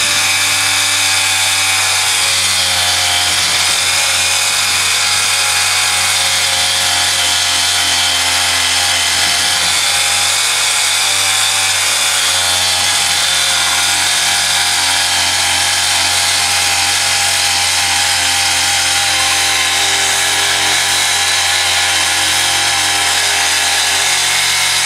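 Jet boat's capstan winch running steadily under load, hauling a large moose carcass up on its line: a continuous motor whine over a low hum.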